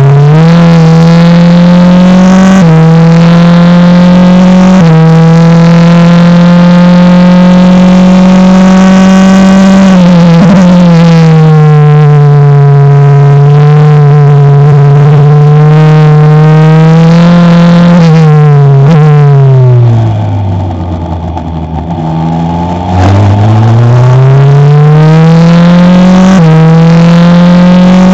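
Single-seater race car's engine heard from the cockpit, accelerating hard through the gears. The pitch climbs and drops in sudden steps at each upshift. Later the revs fall away under braking, run quieter and low for a few seconds about two-thirds of the way through, then climb again as the car accelerates out, with another upshift near the end.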